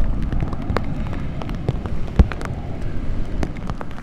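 Storm sounds: wind rumbling with scattered raindrops ticking, and a single low thump about two seconds in.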